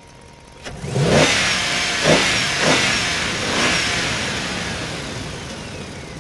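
An engine revs up sharply about a second in, surges three more times, then fades away slowly with a falling pitch.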